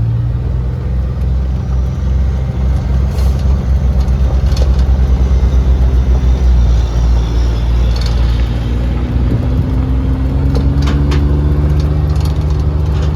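Vehicle engine running steadily while driving, with a low hum and a faint whine that rises slowly in pitch over the last few seconds, and a few short knocks and rattles.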